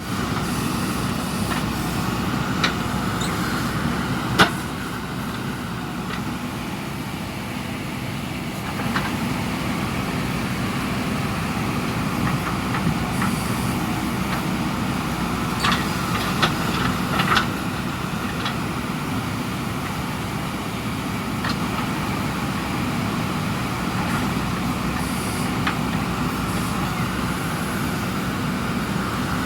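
JCB 3DX backhoe loaders' diesel engines running steadily under digging work, with a few sharp knocks now and then: one loud one about four seconds in and a quick cluster around sixteen to seventeen seconds.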